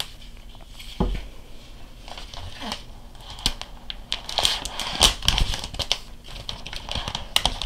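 Plastic wrap being peeled off a new iPad Air, crinkling and crackling, busier in the second half, with a single knock about a second in.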